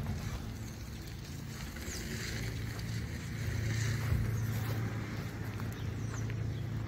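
Steady low hum of a vehicle engine running, with a few faint high chirps over it.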